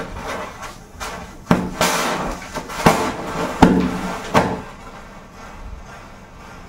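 Hissing, crackling burn of a matchstick chain catching fire, with four sharp pops about a second apart; the hiss dies down after about four and a half seconds.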